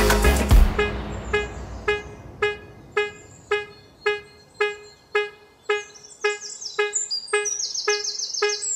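Background music in a stripped-down break: the heavy bass stops at the start, leaving a single plucked note repeating evenly about twice a second. High bird-like chirps join it about halfway through.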